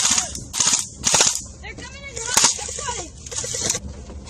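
Airsoft M4 rifle firing short full-auto bursts, about six in all, each a rapid buzz of shots lasting a fraction of a second.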